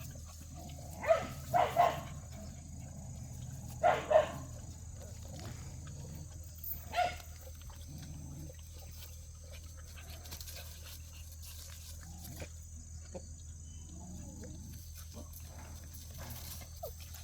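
Jindo puppies barking: about six short, sharp barks in three clusters over the first seven seconds, after which only faint small sounds remain.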